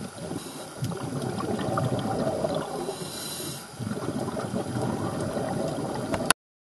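A scuba diver breathing through a regulator underwater: bubbling exhalations with a short hiss a little past halfway, cutting off suddenly near the end.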